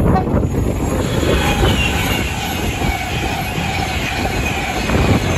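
A high-speed electric passenger train passing close at speed, its wheels rumbling on the rails. A high whine slowly drops in pitch as it goes by.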